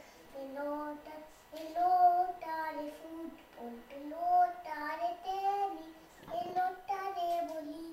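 A young boy singing a children's Spanish-language song in a high child's voice, holding sustained notes with short breaks between phrases, without audible accompaniment.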